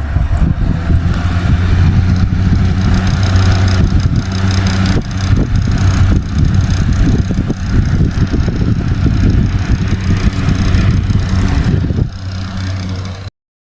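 The homemade air cooler's 12 V DC motor fan running, a steady low hum with a rush of air. It switches on abruptly and is lower in level near the end before cutting off.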